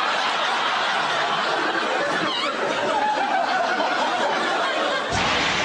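A large studio audience laughing steadily, a dense mass of many voices.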